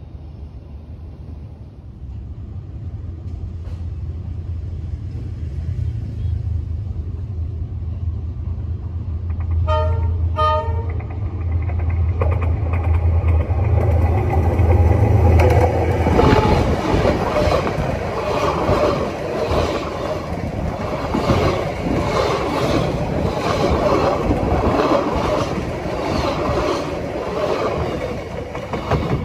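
Diesel locomotive approaching, its engine drone growing louder, sounding two short horn blasts about ten seconds in. From about sixteen seconds the train runs directly overhead, its wheels clattering rhythmically on the rails.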